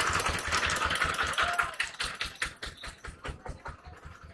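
An engine's rapid, even knocking, fading away over a few seconds, with the beats growing sparser as it goes.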